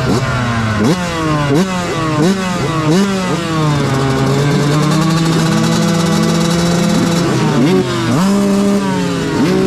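Two-stroke Yamaha YZ125 motocross engine revving on the start line: repeated quick rising blips about every 0.7 s, held at a steady high rev for a few seconds in the middle, then blipped again, with other bikes revving around it.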